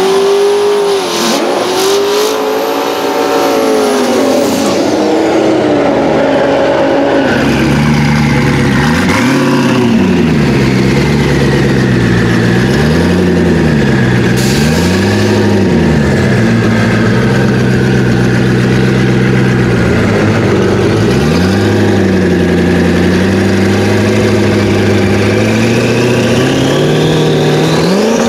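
Twin-turbocharged Corvette ZR1 LS9 V8 at a drag strip. It revs high and up and down for the first several seconds, in a burnout. It then gives slower throttle blips and settles to a steady idle while staging, with another rev near the end.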